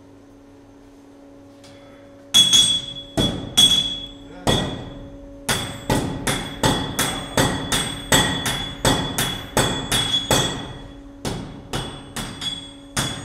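Hammer blows on a red-hot iron bar over an anvil, each with a bright metallic ring. A smith's hand hammer and a striker's sledgehammer work the bar in turn. The blows begin about two seconds in and then come steadily, two to three a second, with two short pauses.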